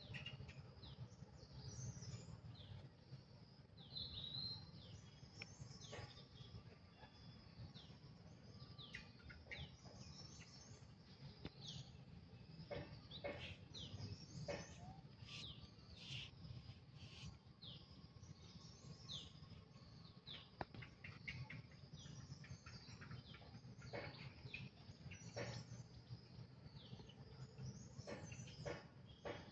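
Faint chirping of small birds in woodland: many short high chirps scattered throughout, over a low steady rumble.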